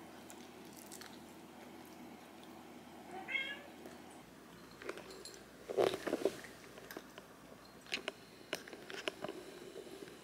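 Domestic cat meowing, loudest about six seconds in, followed by a few light clicks.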